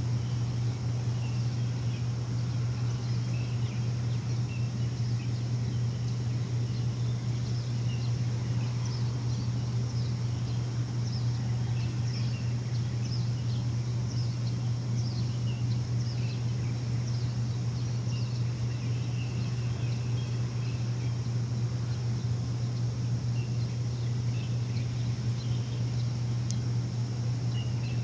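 A steady, low machine hum runs throughout, with small birds chirping over it in short, quick, high calls that come thickest through the middle.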